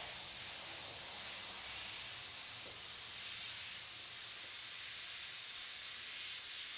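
Airbrush spraying paint: a steady high hiss of compressed air through the nozzle.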